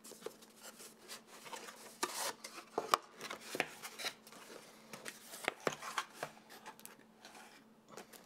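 A small cardboard box being opened by hand: the card rubs and slides as the sleeve and flaps are worked open, with scattered light taps and one sharper knock about three seconds in.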